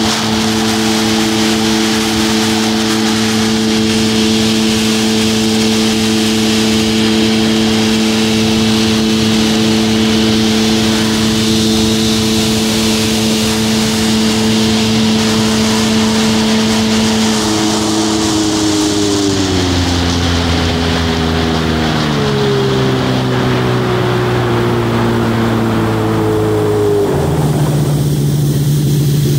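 1997 Yamaha WaveRunner 760's two-stroke twin engine running steadily at wide-open throttle near its top speed of about 52 mph, over a rushing hiss. About two-thirds of the way in the engine note falls in several steps as the throttle is eased off and the craft slows, with a last sudden drop near the end.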